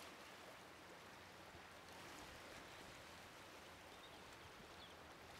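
Faint, steady wash of choppy river water.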